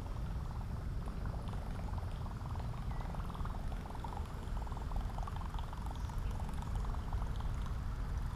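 Water gurgling and trickling against a kayak's hull, a steady fine crackle over a low rumble.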